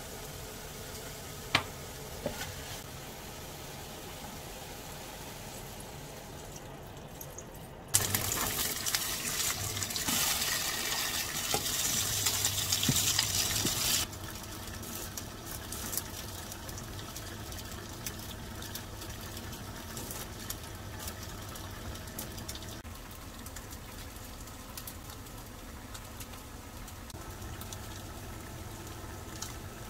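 Tofu hamburg patties sizzling in a frying pan: a loud, even hiss for about six seconds that starts and stops abruptly. Before and after it there is only a low steady hiss with a few light clicks.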